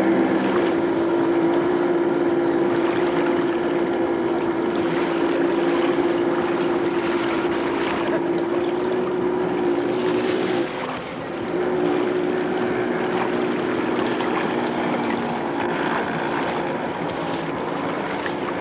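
Engine of a motorized watercraft running at a steady pitch over the water, with wind and spray noise. About eleven seconds in, the engine note briefly drops away, as when the throttle is eased, then picks back up and holds steady.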